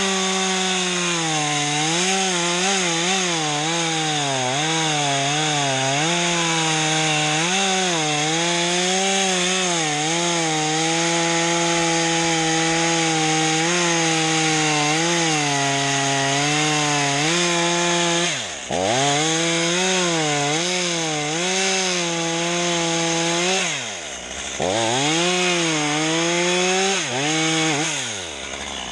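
Chainsaw running at high revs and cutting wood, its pitch wavering as the chain loads up in the cut. Twice, about two-thirds of the way through and again a few seconds later, the throttle is let off so the revs drop away and climb back, and near the end it winds down.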